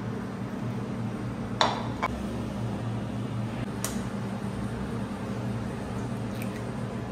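A few sharp clinks and knocks of kitchenware being handled, the loudest about a second and a half in, over a steady low hum.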